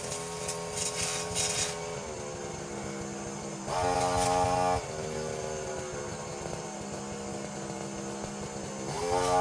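Brushcutter engine running at part throttle, easing down after about two seconds, revved up briefly about four seconds in, then climbing in revs again near the end.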